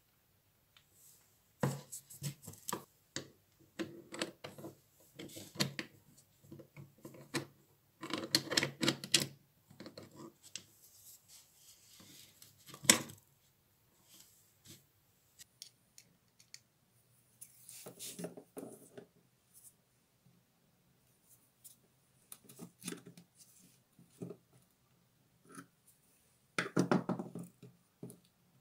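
Parts of a Bosch GWS 7-125 angle grinder being handled and fitted together: the plastic motor housing and the metal gear head click, knock and scrape in irregular clusters, with one sharp click about 13 seconds in.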